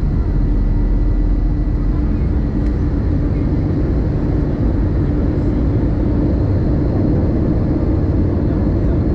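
Airbus A321 cabin noise during descent, heard from a window seat beside the engine: a steady low engine drone and rush of air, with a steady hum on top.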